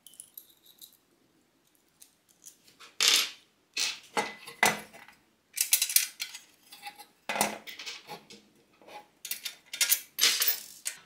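Metal parts being handled during assembly of a steel jigsaw table plate: irregular clinks, taps and clatters as small fittings and the parallel guide are picked up, knocked against the galvanized steel plate and set down on a wooden table.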